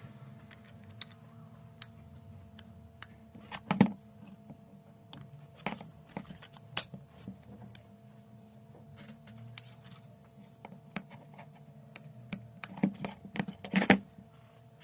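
Scattered light clicks and taps of small objects being handled, louder around four seconds in and again near the end, over a faint steady hum.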